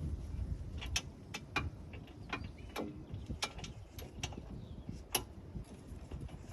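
Socket wrench working on a car's rear hub assembly bolts: about a dozen sharp, irregular metallic clicks over a low rumble.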